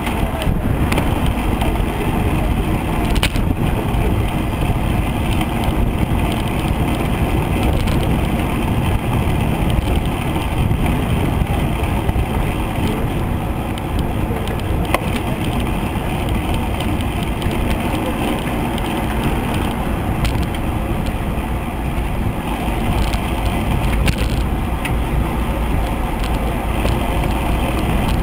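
Steady wind rush buffeting the microphone of a camera on a moving road bicycle, with road and tyre noise underneath and a few light clicks.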